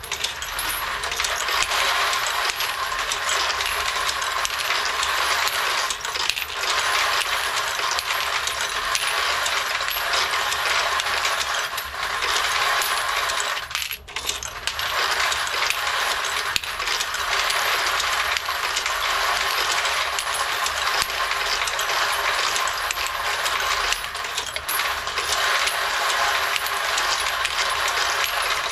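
Brass 9mm cartridge cases clinking and clattering without let-up as an automated headstamp-sorting machine feeds them and drops them into its bins, with a brief break about halfway.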